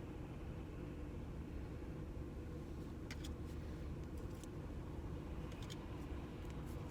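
Steady low hum of a car idling, heard from inside the cabin, with a few faint light ticks a few seconds in.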